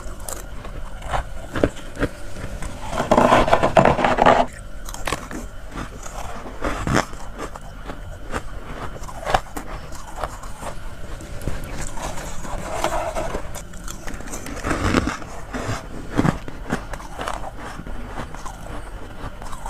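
A person biting and chewing chunks of freezer frost from a mini fridge: a run of short, irregular crunches, with louder, denser crunching about three to four seconds in and again around twelve to fifteen seconds in.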